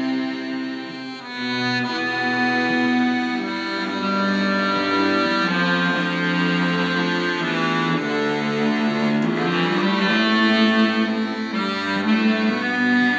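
Live small acoustic band playing a tune led by accordions, with a bowed cello and a clarinet.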